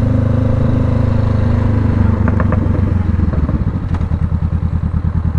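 Honda CBR500R's parallel-twin engine running at steady revs, then dropping to low revs with an even pulsing note about three seconds in. A few light clicks come just before the drop.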